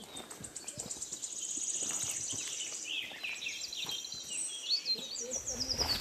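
Forest birds calling: a fast, even, high trill for the first few seconds, then a run of quick chirps and short curving calls, with a few scattered soft knocks.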